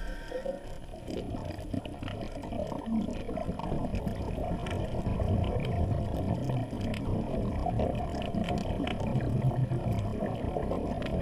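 Muffled underwater rumble and bubbling of a scuba diver's breathing through the regulator, heard through the camera's housing. It swells louder after a few seconds, over a faint scatter of clicks.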